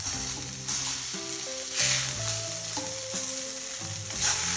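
Eggs sizzling as they fry in oil in a pan of onion masala, with a spatula scraping and turning them about three times. Soft background music with held notes plays underneath.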